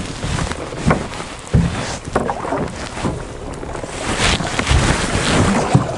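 Wind on the microphone and water lapping against a small boat's hull at sea, with a few scattered knocks and clicks.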